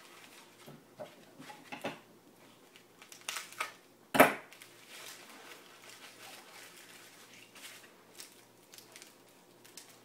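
Hands unwrapping a foam-padded parcel: rustling and crinkling of the foam wrap, with a short, loud rip about four seconds in as the yellow tape holding it is torn off.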